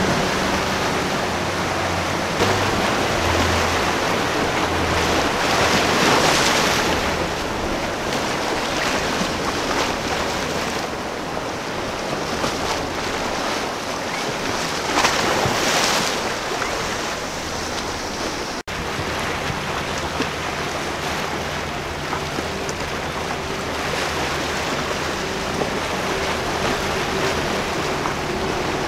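Outboard engines of passing center-console fishing boats humming under the rush of surf and wind on the microphone. The sound of breaking water swells louder twice, about six and fifteen seconds in, and there is a brief dropout about two-thirds of the way through.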